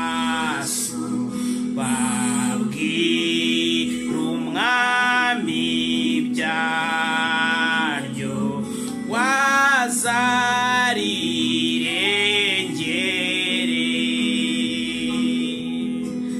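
A man singing a slow gospel worship song in long held, gliding phrases, with a steady low tone held underneath.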